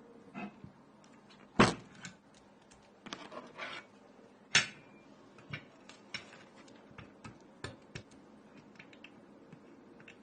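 Scattered clicks and knocks from a metal-cased mechanical keyboard and its parts being handled, two louder knocks among lighter clicks.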